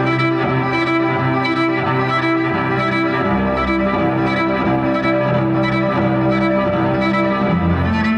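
Cello bowed in long held notes, several tones sounding together as a slow, sustained drone that shifts pitch every second or two.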